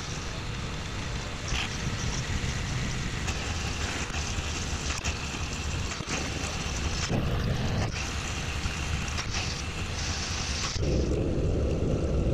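Vertical milling machine running, its cutter machining across the ends of four steel bars clamped together in a vise: a steady spindle-and-cutting noise that gets louder and heavier about eleven seconds in.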